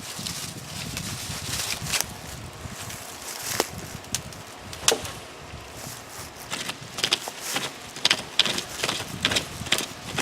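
A hand-pulled pocket chainsaw rasping through a small pine trunk, with sharp snaps of wood. In the second half comes a quick run of cracks and crackles, about two or three a second.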